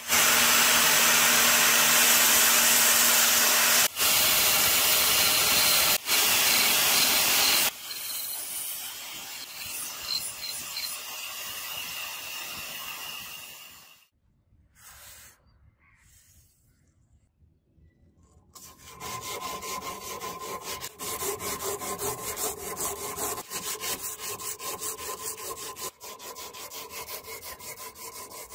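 Angle grinder with a belt-sander attachment running loud and steady for about eight seconds, then a quieter stretch as the steel kunai's ring is ground against the abrasive belt. After a few seconds' lull, quick back-and-forth rubbing of an abrasive cloth strip drawn through the ring, hand-sanding the metal.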